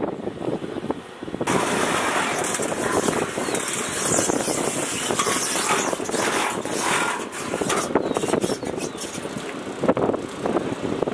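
A vehicle running steadily, with rustling and a few short metallic clicks from a refuelling hose and nozzle being carried; the noise rises suddenly about a second and a half in.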